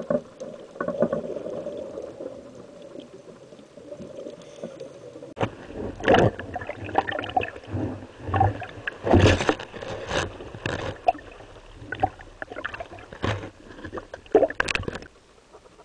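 Steady underwater noise, then about five seconds in the camera breaks the sea surface and waves splash and slap irregularly around it, with water washing over the housing.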